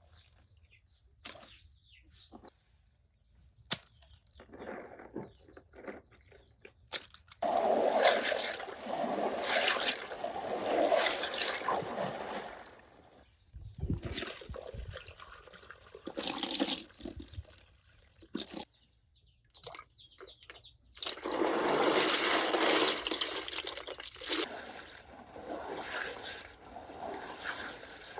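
Water splashing and trickling in irregular bursts, with longer stretches about seven seconds in and again around twenty-one seconds.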